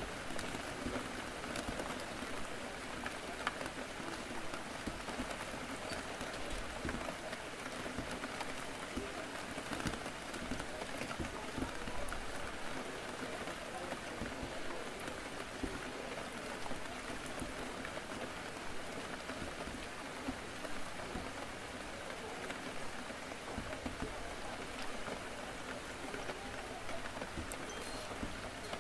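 Steady rain falling on a window, with scattered drop ticks and a low murmur of indistinct background chatter.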